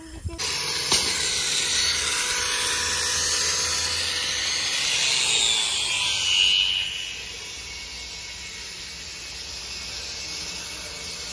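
A power tool cutting steel reinforcing bar: a steady, high hiss with a faint whine under it. About seven seconds in it drops to a lower, quieter hiss.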